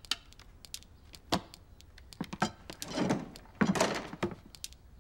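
Soft handling noises: scattered light clicks and knocks, one sharper knock about a second and a half in, and two brief rustling, shuffling sounds near the end, like a book being set down and someone settling at a piano.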